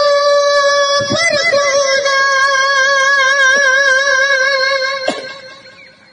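A boy singing long, high held notes with vibrato into a handheld microphone: one long note, a short slide to a new note about a second in, then another long held note that fades away about five seconds in.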